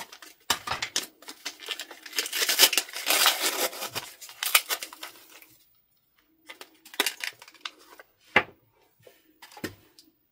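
Paper and plastic packaging crinkled and torn for about five seconds, then a few sharp clicks and taps as a small plastic lip balm pot is handled out of its clear plastic blister pack.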